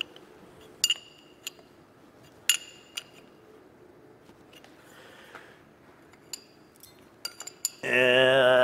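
Steel wrench clinking against the lathe compound's lock nuts as the compound is loosened to be swung to a new angle: a handful of sharp, separate metallic clinks with a short ring. Near the end a man's voice holds a long drawn-out 'and'.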